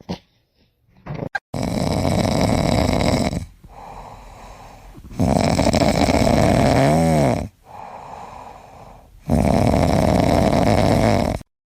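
A pet snoring loudly: three long snores about four seconds apart, with quieter breaths between. The middle snore carries a whistling rise and fall, and the last one cuts off suddenly.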